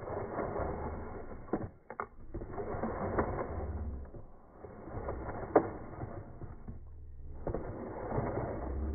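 Bow drill at work: a bow sawed back and forth spins a wooden spindle in a wooden hearth board, a steady grinding of wood on wood that breaks off briefly a couple of times, with one sharp click a little past the middle.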